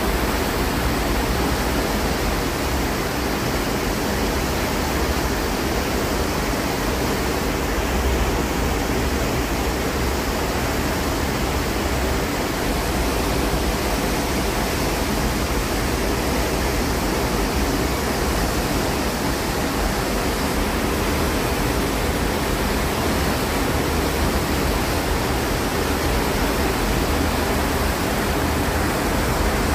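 Steady wind noise on the microphone of a camera filming from a ship's deck: a constant rush with a flickering low rumble underneath, unchanging throughout.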